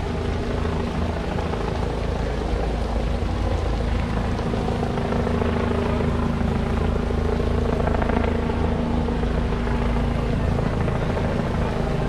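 A steady engine drone: a constant low rumble with a hum that holds its pitch.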